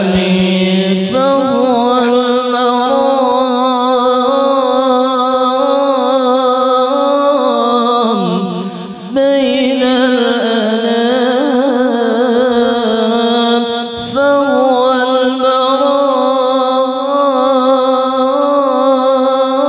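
A solo voice singing a long, ornamented Islamic devotional chant through a sound system being tested, with wavering held notes and short breath pauses twice.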